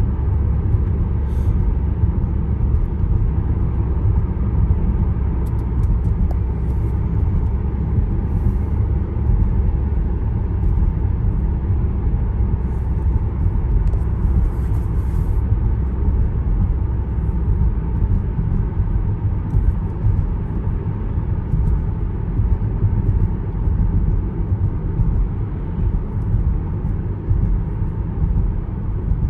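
Car driving on a winter road: a steady low rumble of road and engine noise.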